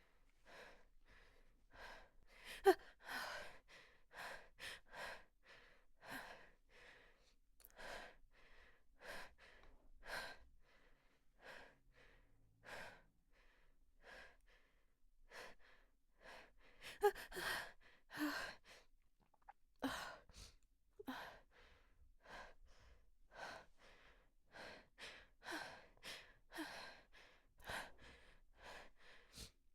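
A woman's breathy, hitching inhalations building up to a sneeze that does not come yet: quick catches of breath every half second to a second, some with a short voiced catch in the throat. The sharpest hitches come about 3 seconds in and again about 17 seconds in.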